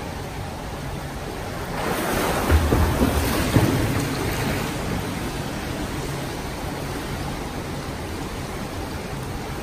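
Pool water splashing and sloshing close by, swelling louder about two seconds in with a few low thumps, then settling back to a steady hiss.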